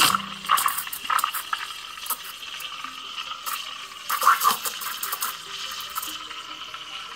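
Steam wand of a Caffe Vergnano espresso machine with a brass boiler, hissing steadily into a pitcher of milk as it froths it, with louder bursts about half a second in, about a second in, and just after four seconds.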